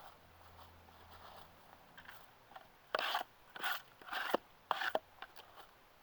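Pocket knife working wood: four short scraping, crunching strokes in quick succession, with a sharp click or two among them.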